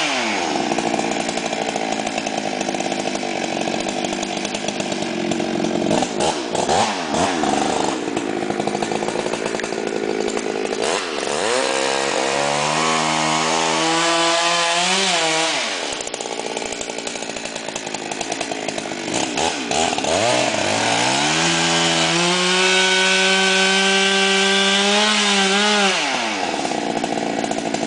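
Two-stroke chainsaw cutting into a standing tree to fell it. The engine runs under load, then twice revs up, climbing in pitch and holding, before dropping back suddenly: once around the middle and again about three quarters through.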